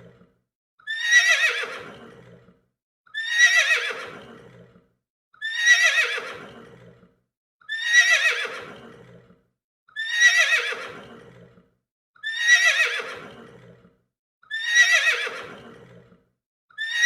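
A horse whinnying: the same whinny repeats about every two and a quarter seconds, seven times over, each falling in pitch and fading out.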